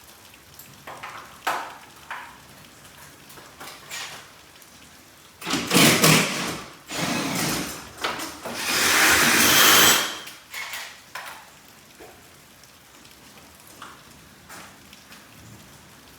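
Garage door installation work: scattered clicks and knocks, then three loud stretches of scraping, rattling noise between about five and ten seconds in, the last and longest the loudest.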